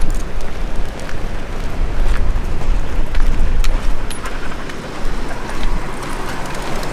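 Wind buffeting the microphone: a loud, gusting low rumble that swells and dips.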